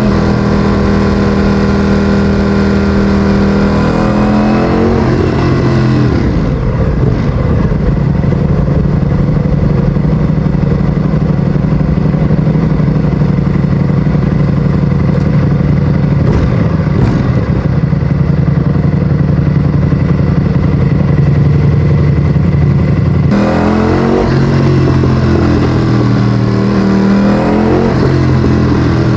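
Ducati Streetfighter V4S's 1103 cc Desmosedici Stradale V4 engine running through an Akrapovic exhaust. The revs rise and fall over the first few seconds, hold steady for a long stretch in the middle, and then rise and fall again near the end.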